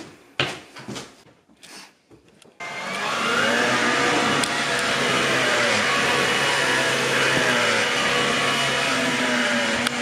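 A few separate knocks over the first two seconds or so, then a Bosch Athlet cordless stick vacuum cuts in abruptly about two and a half seconds in and runs steadily, a loud rushing motor sound with a wavering whine, as it is pushed over carpet.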